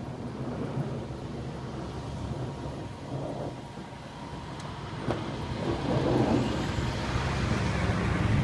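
Engine of a 1996 GMC Z-71 pickup running while it plows snow, a steady low rumble that grows louder about five seconds in.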